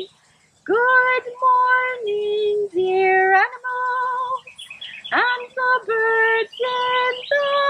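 A woman singing a slow melody of held notes with vibrato, starting after a brief pause.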